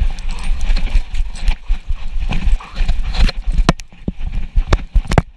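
A dog running over snow, heard from a camera strapped to its chest: its paws land in a quick, irregular run of thuds, with sharp clicks and knocks from the camera mount.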